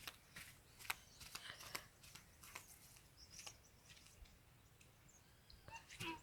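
Near silence: room tone with a few faint scattered clicks and taps, and a brief faint chirp near the end.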